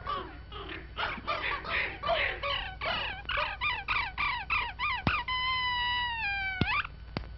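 Cartoon sound effects: a quick run of short squeaky yelps, about four a second, then a long held whistling tone that sinks a little and cuts off with a sharp click.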